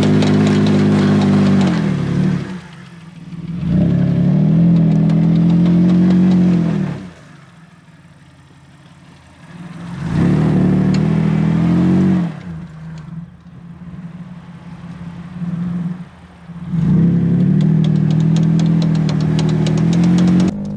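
Mitsubishi Pajero II's 3.5-litre V6 revving hard in four long bursts, the pitch swelling and then dropping away between them, as the SUV pulls over sand bumps in low range.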